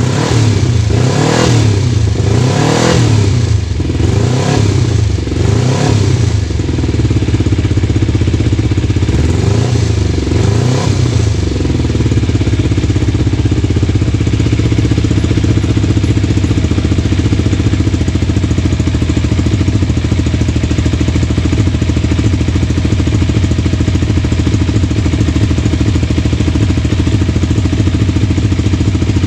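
Kawasaki Ninja 250 parallel-twin motorcycle engine being revved in short throttle blips, four in quick succession and then two more, before settling into a steady idle for the rest of the time.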